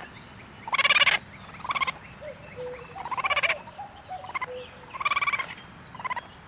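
Raccoon trilling: a string of short, quavering trilled calls, the loudest about a second in, a little after three seconds and at about five seconds, with softer chirps and squeaks between.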